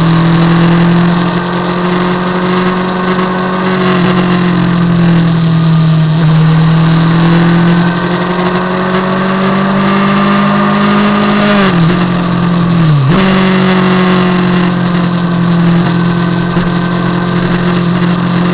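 Motorcycle engine running under way at a steady cruising speed, its pitch drifting slowly up and down. About two-thirds of the way through, the engine note drops sharply twice in quick succession and then comes back up to cruising pitch.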